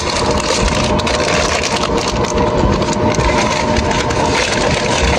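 Steady rushing noise of an airliner cabin with a faint steady hum, and crackling rustles of food packaging close to the microphone.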